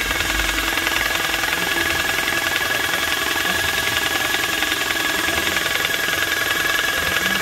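EC-X9 electric airless paint sprayer running steadily, with a high motor whine over the fast, even knocking of its piston pump.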